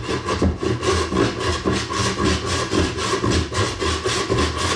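Tenon saw cutting a dovetail into hard maple by hand, with a steady run of rasping back-and-forth strokes.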